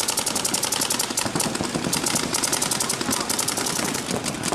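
Paintball markers firing in a rapid, steady stream of sharp pops, many shots a second.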